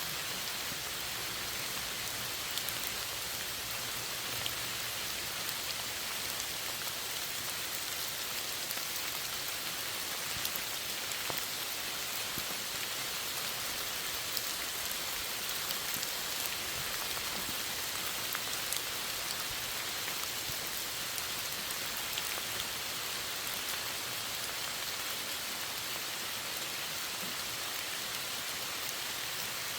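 Steady rain falling: an even hiss with scattered sharper ticks of individual drops landing.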